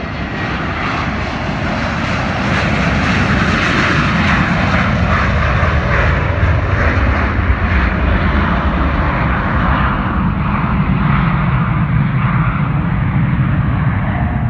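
T-tailed jet airliner taking off at full thrust: loud jet engine noise that builds over the first couple of seconds as it passes and lifts off, then holds. In the later seconds the deep rumble grows and the high hiss fades as the jet climbs away.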